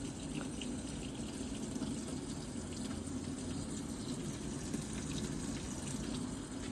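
Steady rush of water inside an LG WF-T857 top-loading washing machine running on a function test.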